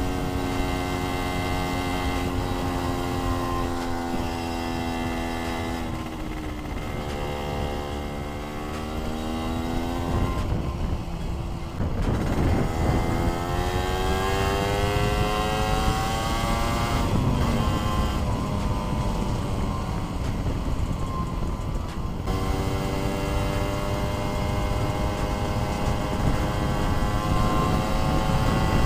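Suzuki Satria 120 single-cylinder two-stroke engine pulling along on the road. Its pitch sags, then climbs twice with sharp drops in between, and climbs steadily again near the end. Wind noise rushes over the microphone throughout.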